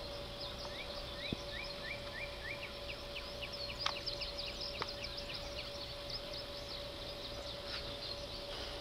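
Outdoor ambience with small birds chirping: runs of short, quick, rising chirps, several a second. A faint steady tone and a few light clicks sit underneath.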